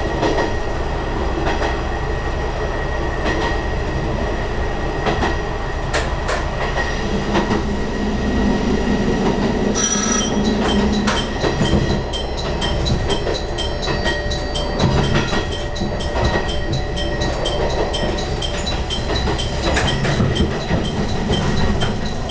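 Diesel railcar running on the line, heard from inside the cab: steady running noise with wheels clicking over rail joints and points as it comes into the station. A sharp burst comes about ten seconds in, then a run of evenly spaced ticks.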